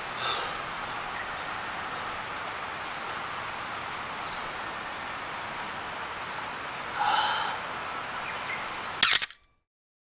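Steady outdoor background noise, with a short call about seven seconds in and a fainter one near the start. A sharp click about nine seconds in, then silence.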